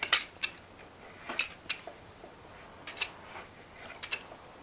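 Flat scraper blade scraping dried filler flush on a varnished wooden dining-chair rail: short, sharp scraping strokes, several in quick pairs, as the filled screw holes are smoothed down.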